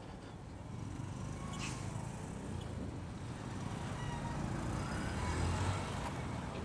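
Small motorcycle engine running with road and traffic noise, heard from the pillion seat of a moving boda boda motorcycle taxi. A low rumble swells a little about five seconds in.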